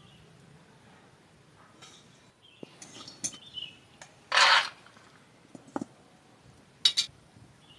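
Metal spatula scraping and clinking in a metal wok during frying. There is one brief, loud scrape about four and a half seconds in, and two sharp clinks near the end.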